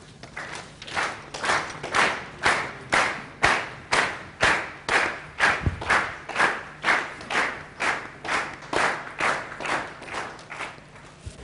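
Audience clapping together in a steady rhythm, about two claps a second, strongest in the first half and tailing off near the end.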